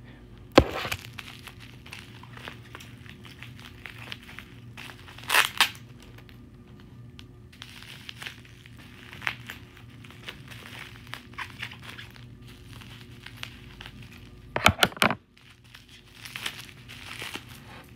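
Packing tape and plastic packaging being cut and torn open: steady crinkling and tearing, with a few louder rips about half a second in, around five seconds in and near fifteen seconds.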